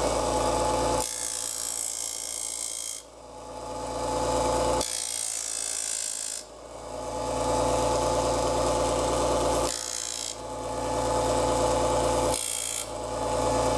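Homemade mini disc sander running with a steady motor hum. Four times, a small wooden shingle is pressed against the sanding disc to bevel its corner, each contact a hissing grind of wood on abrasive.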